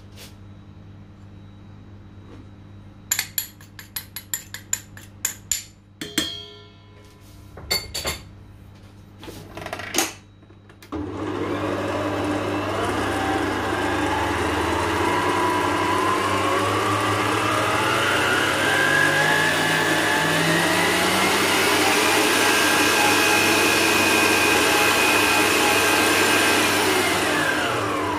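A run of sharp clicks and a few ringing knocks, then a Kenwood Chef stand mixer's motor starts about eleven seconds in. Its whine rises in pitch for about ten seconds as the speed dial is turned up, runs steady at high speed, and winds down when it is switched off near the end.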